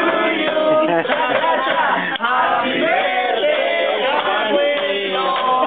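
A group of voices singing and chanting together, mixed with talk from the table.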